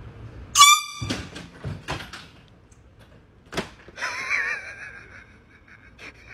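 A sudden, very loud shrill blast sets off a scare, followed by a scramble of knocks and thuds, a single sharp knock, and a high wavering cry.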